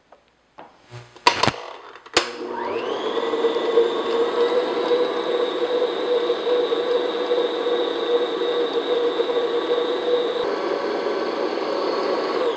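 Electric stand mixer with a paddle attachment starting up with a quickly rising whine, then running at a steady pitch as it beats butter and sugar until light and fluffy. A couple of sharp clunks come just before the motor starts.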